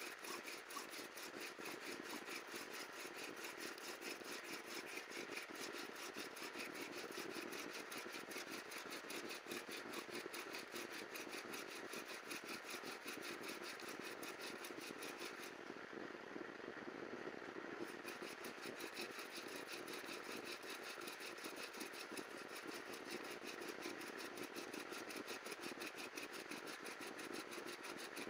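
Bow drill at work: a wooden spindle spun back and forth by a bow and grinding in the notch of a wooden hearth board, a steady rhythmic grinding that goes on throughout, as friction builds heat toward an ember.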